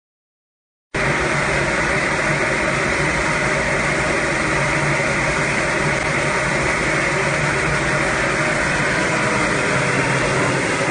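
Automatic spray-painting line for PVC profiles running: a loud, steady machine noise that starts abruptly about a second in.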